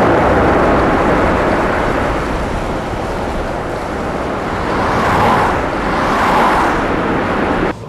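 Bentley coupé driving on a wet street: a loud, dense rush of engine and road noise that swells twice near the end and then cuts off abruptly.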